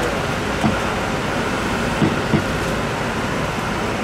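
Steady background din, with three short dull knocks of a broad cleaver cutting through bluefin tuna meat onto a wooden cutting table, the last two close together.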